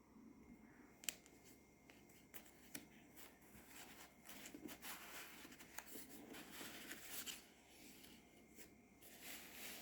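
Faint rustling of card and paper as a handmade paper box is handled, with scattered light clicks and taps, the sharpest about a second in.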